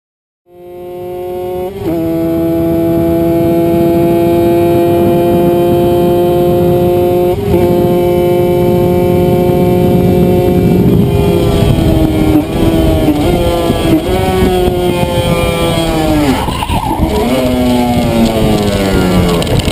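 Kawasaki two-stroke motorcycle engine at full throttle, heard from onboard with wind noise: it starts about half a second in and pulls with a slowly rising pitch, broken by two quick gear changes. Over the second half the pitch drops in a series of steps and ends on a long falling note as the bike slows through downshifts.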